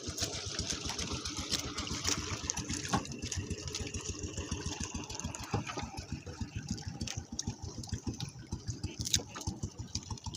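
A small engine running steadily with a fast, even chugging beat, fading a little in the second half.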